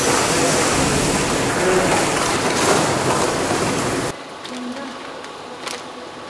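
Loud, steady hiss-like din of food-packaging-line machinery. About four seconds in it drops abruptly to a much quieter hum with a few light clicks.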